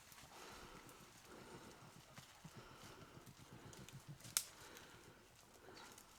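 Beagles baying faintly in the distance while running a rabbit, in soft repeated calls, with a single sharp click about four seconds in.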